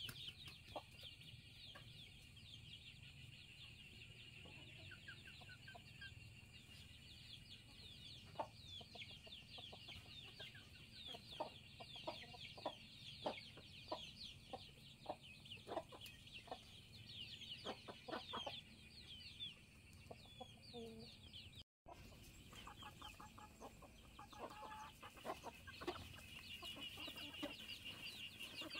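Chickens clucking faintly, with short clucks scattered through the middle, over a dense high chirping that runs throughout. The sound drops out completely for a moment about three-quarters of the way through.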